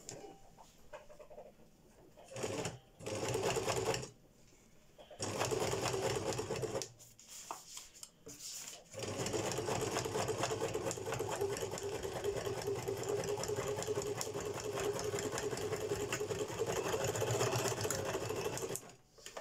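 Electric domestic sewing machine stitching zigzag: a couple of short runs of a second or so, then one long steady run of about ten seconds that stops shortly before the end.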